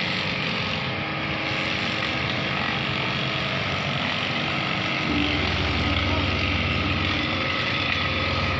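Steady outdoor traffic noise by a road. About five seconds in, a vehicle engine close by starts to be heard idling as a steady low hum.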